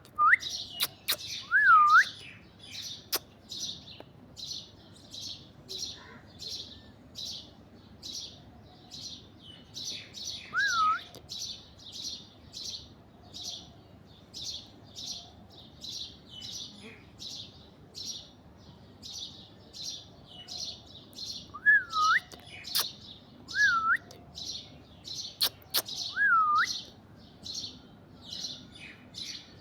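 Birds chirping in a quick, steady series of about one and a half short high chirps a second. A few louder whistled calls that dip and then rise in pitch come in near the start, once about a third of the way in, and in a cluster about three-quarters through.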